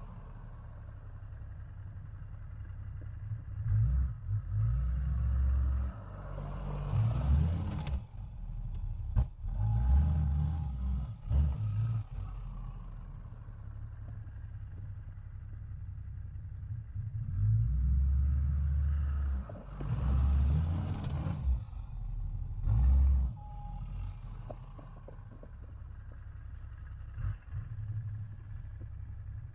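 Dodge Ram 2500 pickup's engine running under load while plowing snow, rising in loud surges every few seconds as it pushes into the drifts and easing back between pushes.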